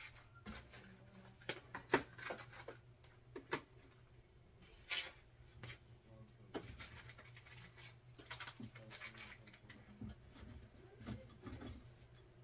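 Small objects being picked up and set down on a dresser top: scattered light knocks and clicks with some rustling, the sharpest knock about two seconds in. A faint steady low hum runs underneath.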